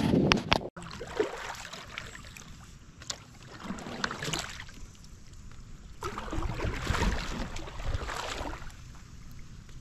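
A few sharp clicks right at the start. Then water sloshing against a plastic fishing kayak, swelling up twice, about three and a half and six seconds in.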